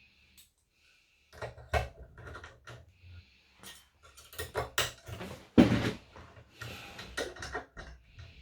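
Irregular metallic clicks, taps and scrapes from a five-lever padlock being handled and picked with lock picks, starting about a second in.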